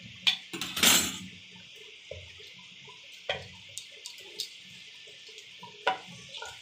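A wooden spatula and a steel spoon stir mutton curry in a clay handi, scraping and knocking against the pot a few times; the loudest knock comes about a second in. Under it runs the steady hiss of the curry boiling down on a high flame to dry off its water.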